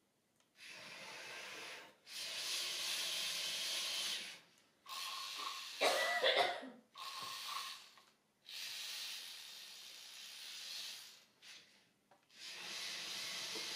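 A K'nex model combat robot's electric motors and plastic gears running in short bursts of a second or two, stopping and starting as it drives and turns. About six seconds in there is one louder stretch with a whine.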